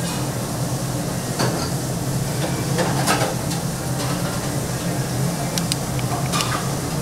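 Restaurant kitchen noise: a steady low hum with a few scattered clinks and knocks of utensils or dishes.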